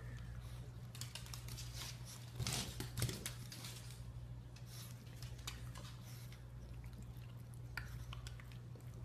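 Scattered faint clicks and crackles from a French bulldog moving and nosing about on a hardwood floor, heaviest about two and a half to three seconds in, over a steady low hum.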